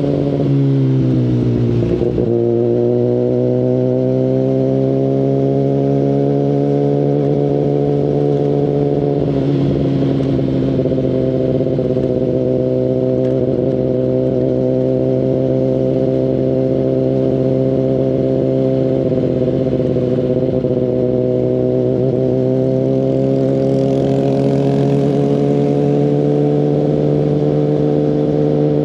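Kawasaki Ninja ZX-10RR inline-four running through an Akrapovic full exhaust system while riding. The engine note falls over the first two seconds, then climbs gently, dips briefly about ten seconds in, and holds a steady cruising pitch for the rest.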